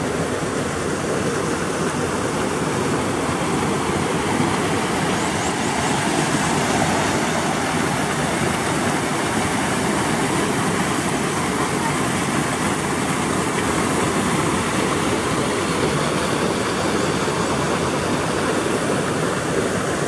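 Steady rushing of a small river's waterfall and cascades, white water pouring over rock ledges into a pool, an even unbroken roar of water.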